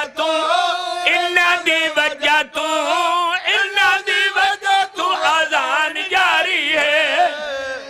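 A man chanting devotional Punjabi elegy verse into a microphone, in a long, wavering melody with held notes. It fades near the end.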